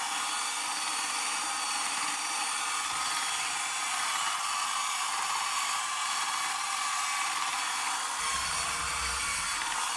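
Small 60 rpm geared DC motors driving the rear tracks of a Bruder 1/16 John Deere 9620RX radio-control conversion, running steadily with an even whir during a test run. A low rumble comes in near the end.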